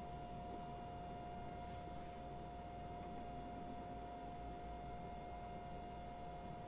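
BV20L mini lathe running with its spindle turning slowly, giving a steady high-pitched whine over a low hum.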